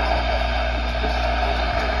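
Steady radio static with a low hum from a NOAA Weather Radio receiver tuned to a noisy signal.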